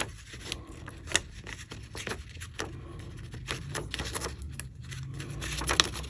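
Paper pattern pieces rustling and crackling in the hands as clear tape is pressed along the join between two printed pattern parts, with irregular sharp crackles throughout.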